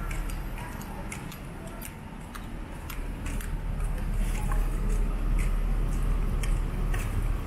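Footsteps on paving stones, about two a second, over a low rumble of city traffic that grows louder partway through.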